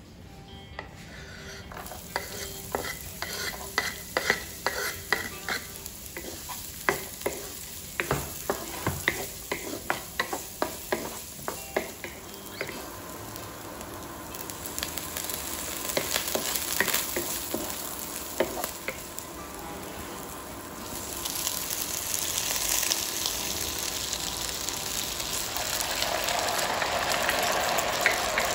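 Aromatics (garlic, ginger, scallion and dried chilies) frying in oil in a nonstick wok, with a wooden spatula stirring and clacking against the pan in rapid sharp clicks through the first half. The sizzle then grows louder and fuller in the last third as chicken wings and sauce go into the wok.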